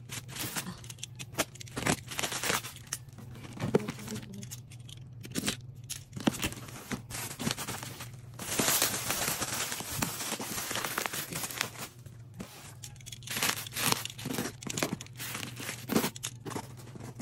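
Packaging being torn open and crumpled by hand, with irregular crinkles, rips and knocks of handling, and a longer stretch of tearing about eight to ten seconds in. A steady low hum runs underneath.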